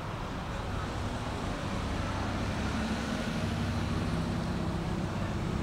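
A low engine hum over a steady rumble of outdoor noise, growing louder toward the end.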